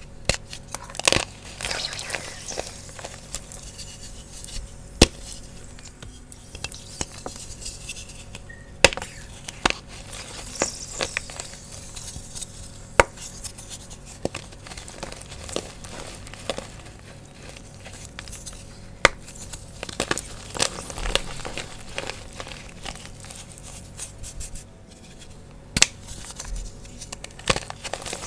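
Fresh blocks of Sports Chalk gym chalk being snapped and crushed by hand in a water crumble: crisp crunching and crumbling, with loud sharp snaps every few seconds as pieces break off and fall into the tray.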